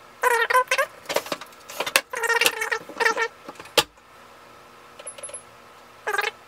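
LG front-load washer's control panel beeping as it is switched on and its cycle buttons are pressed: a few short runs of electronic tones, a sharp click about four seconds in, and one more beep near the end.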